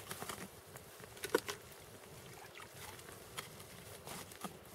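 Faint scattered clicks and light knocks of fishing tackle being handled at an ice hole, one sharper click about a second in.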